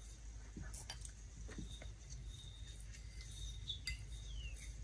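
Faint, scattered light clinks and taps of a salt container and plate being handled while more red salt is added.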